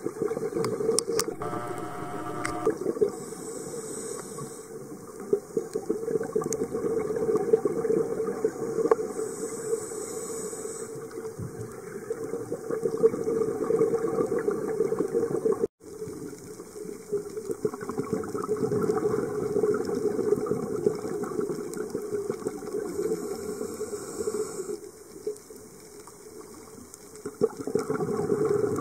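Underwater sound picked up by a camera on the reef: a muffled, steady rush of water, with short high hissing spells every several seconds. It cuts out for an instant just past halfway.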